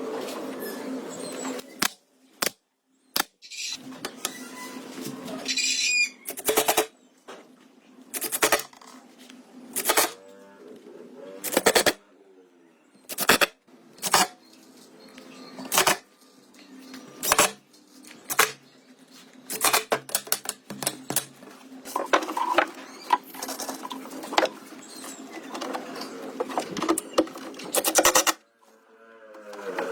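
Repeated sharp knocks on wood, one every second or two, in an uneven rhythm, the kind made by a hammer or mallet striking a wooden workpiece. A faint steady hum runs underneath.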